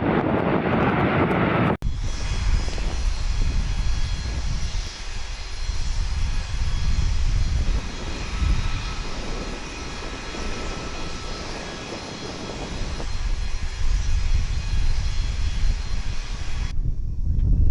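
Jet aircraft engine rumble in several spliced clips, cut off abruptly about two seconds in and again near the end. The rumble fades in the middle and swells back, and a faint rising whine comes in after the last cut.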